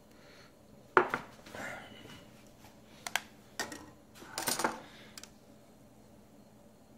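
Several sharp clinks and knocks as a cup and a digital thermometer are handled, the thermometer's metal probe clinking against the cup; the loudest knock comes about a second in, with another cluster of clinks midway through.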